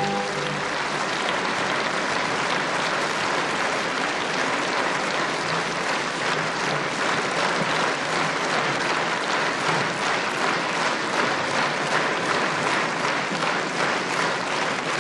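Large theatre audience applauding steadily at the end of a ballet variation, after the orchestra's final chord cuts off at the very start.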